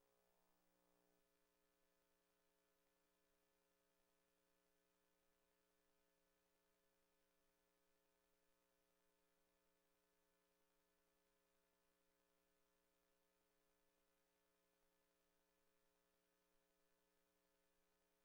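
Near silence, with only a very faint steady electrical hum.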